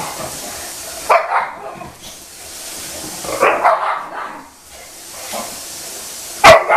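Two boxer dogs play-fighting and barking in short bursts: one about a second in, another a few seconds in, and a loud, sharp bark near the end.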